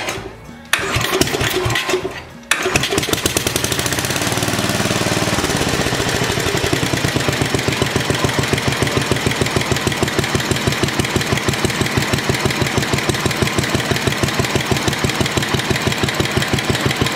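Tecumseh HH100 10 hp single-cylinder engine running on a freshly fitted aftermarket carburetor while its low-speed jet is being adjusted. The sound breaks off briefly twice in the first few seconds, then settles into an even, steady run of firing pulses.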